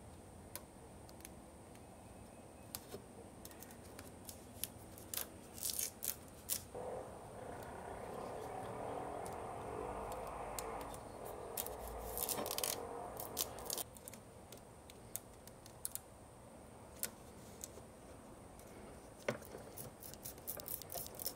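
Faint handling noises: scattered light clicks and taps as hands press a rubber edge strip onto the rim of a painted metal mesh radiator guard. A stretch of soft steady noise runs through the middle for about seven seconds.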